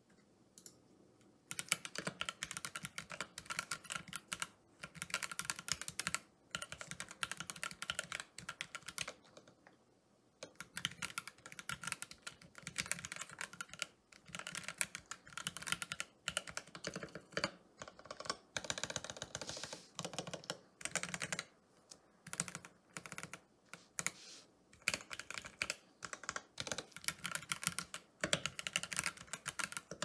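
Mechanical keyboard fitted with stock, factory-lubed Gateron Oil King linear switches (55 g) and PBT keycaps, in a lightly foam- and tape-modded ID67 v2 board, being typed on in quick runs of keystrokes with brief pauses.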